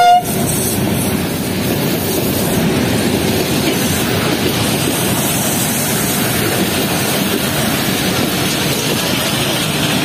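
Passenger coaches of an express train rolling past close by, a steady rumble and rattle of wheels on rails. A diesel locomotive's horn toot cuts off right at the start.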